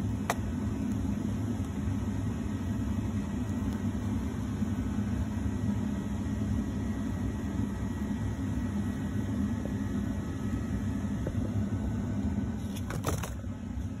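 Greenhouse heaters running with a steady low hum and rumble. A click comes just after the start, and a brief knock of plastic about a second before the end.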